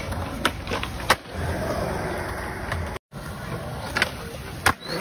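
Skateboard wheels rolling on smooth concrete, with several sharp clacks of the board popping and landing. The sound cuts out for a moment about three seconds in.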